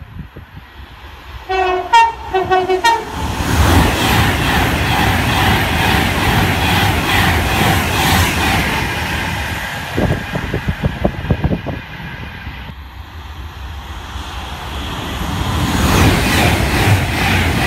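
Train horn giving a few short two-tone blasts, high and low notes alternating, then a train passing close by with a loud, steady rush and rumble. A quick run of wheel clicks over rail joints comes about ten seconds in.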